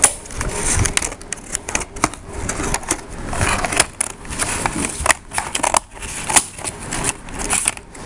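Plastic and cardboard packaging of a Nerf blaster box being cut with scissors and handled: irregular crinkling and rustling broken by sharp clicks and snips.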